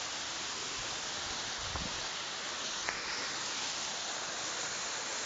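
Steady rush of falling water from a waterfall running with very little water, with a single click about three seconds in.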